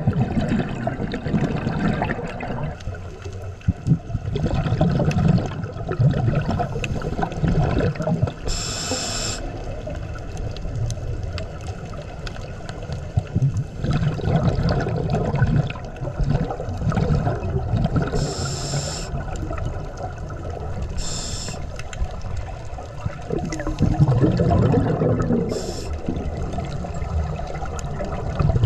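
Underwater scuba breathing picked up by the camera: exhaled bubbles from a regulator gurgling and rumbling in swells, with a few brief hisses.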